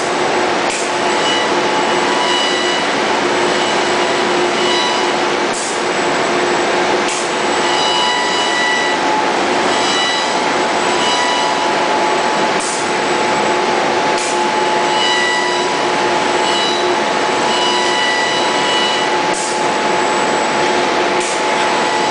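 CNC laser sail-cutting machine at work: a steady loud rush of air with a low hum, and high motor whines that start and stop every second or two as the cutting head moves across the sailcloth. A few short sharp ticks stand out now and then.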